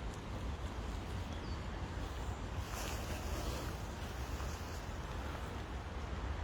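Steady rushing noise of rain and a fast-flowing river, with wind rumbling on the microphone; a brief brighter hiss about three seconds in.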